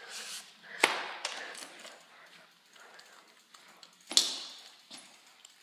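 Bicycle rattling as it is ridden over a concrete floor: two sharp knocks, about a second in and about four seconds in, with light clicking and rattling between.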